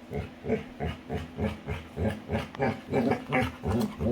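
Labrador retriever making rapid, rhythmic low grunts, about four a second, while playing.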